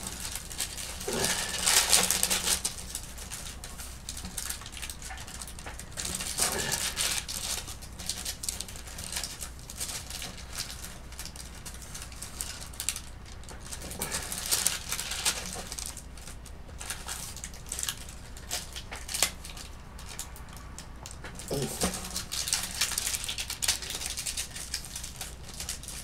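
Hands working at a paper-covered work table among wooden sculpting tools: short bursts of rustling and scraping every few seconds, with small clicks between them, over a steady low hum.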